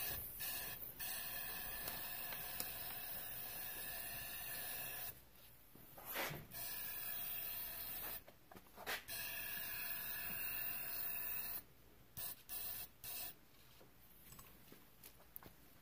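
Eastwood dual-voltage powder coating gun spraying air-carried powder at low pressure, a steady hiss. The trigger is held for several seconds at a time, then given a few short puffs near the end.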